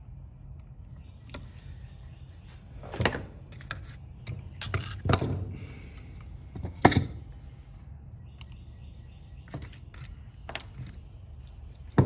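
Irregular clicks, knocks and rattles of hands and small tools handling a Husqvarna string trimmer's parts during a fuel line and fuel filter replacement, over a low steady hum. The loudest knocks come about three, five and seven seconds in.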